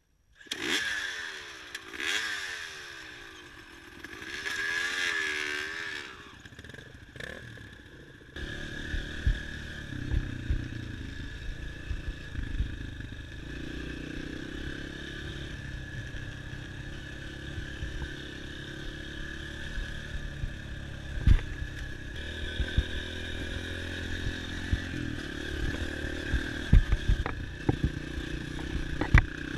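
Dirt bike engine revved up and down a few times, then from about eight seconds in running steadily under way, with frequent knocks and clatter over rough ground.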